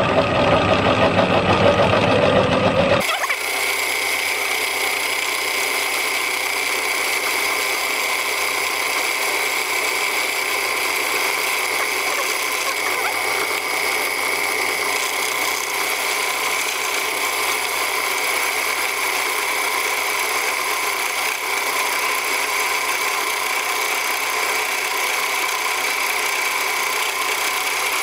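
Home-built vertical milling head running, its endmill cutting scrap aluminium; the first seconds are heavy and rough. About three seconds in the sound switches abruptly to an even, higher whine as the footage is sped up fourfold. The noise comes from the spindle dropping after its top locking nuts backed off.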